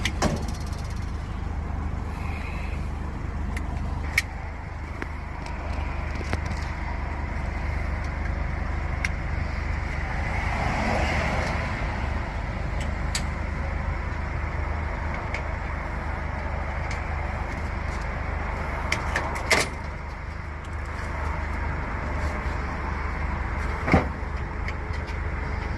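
A vehicle's engine idling steadily, with a few sharp clicks and knocks now and then.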